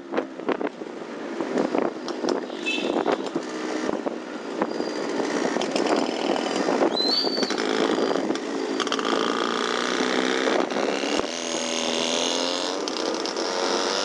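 Two-stroke motorcycle engines running in traffic, their pitch rising and falling as the throttle opens and closes. There is a crackle of short pops in the first few seconds.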